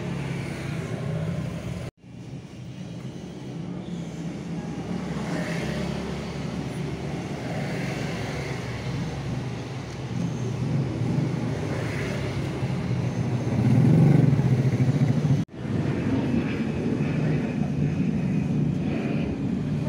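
Motor vehicle engine noise: a steady low hum that swells loudest about fourteen seconds in and breaks off briefly twice.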